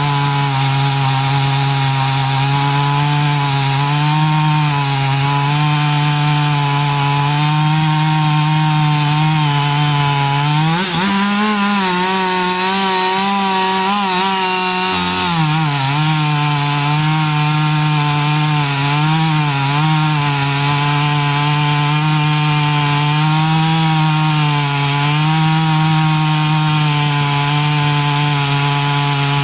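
Chainsaw running steadily under load while cutting wood. About eleven seconds in its pitch climbs for a few seconds as the revs rise, then settles back to the cutting note.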